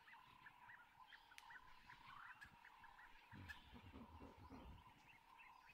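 Near silence: a faint steady hum with soft chirps repeating a few times a second, in the manner of a distant frog or insect chorus.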